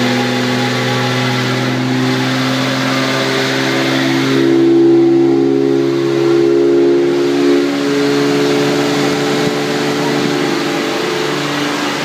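BMW E91 335xi running in gear with the rear wheel spinning freely, giving a steady droning hum of several level tones over engine and exhaust noise. The drone is the rolling noise of a failing right rear wheel bearing. It swells a little for a few seconds near the middle.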